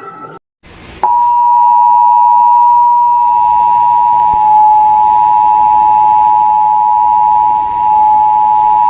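Emergency Alert System attention signal: two steady tones sounding together (853 and 960 Hz), loud and unwavering for about eight seconds. It starts about a second in, after a brief dropout, and cuts off sharply. It is the signal that an emergency alert message, here a severe thunderstorm warning, is about to be read.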